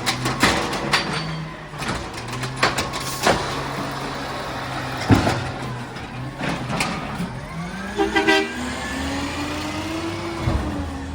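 Recycling truck's engine running, with scattered clanks and knocks, then two short horn toots about eight seconds in, after which the engine note rises steadily as it revs up.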